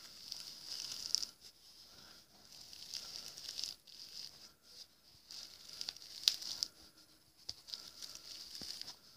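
Clear plastic bag crinkling faintly and irregularly under a fingertip, with a few small sharp clicks, the sharpest about six seconds in.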